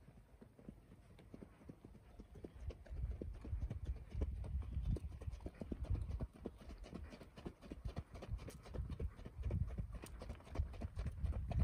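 Horse's hooves beating quickly and evenly on a riding track, getting louder from about three seconds in as the horse comes nearer.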